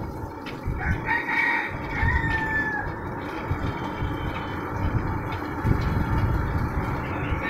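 A rooster crowing once, starting about a second in and lasting about two seconds, its long final note falling slightly in pitch.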